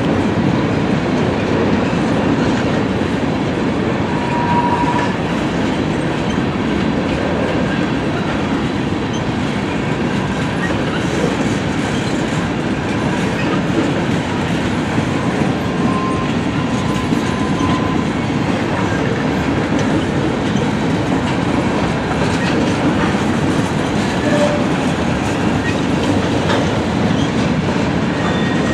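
Freight train cars rolling past at steady speed: a continuous rumble of steel wheels on the rails, even in level throughout.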